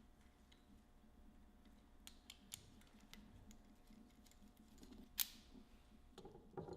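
Near silence with faint small clicks of hand tools and hub parts being handled while the hub bearings are taken out. There are a few sharper clicks about two seconds in and one louder click about five seconds in.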